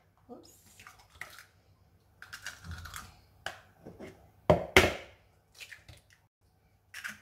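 Eggs being cracked open over a mixing bowl. Several sharp cracks and knocks of shell, the loudest pair about four and a half seconds in, with lighter shell crunching and tapping in between.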